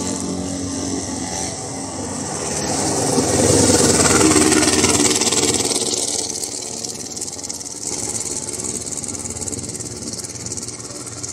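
A motor vehicle's engine running. It grows louder to a peak about four seconds in, as if passing close by, then fades back to a lower steady level.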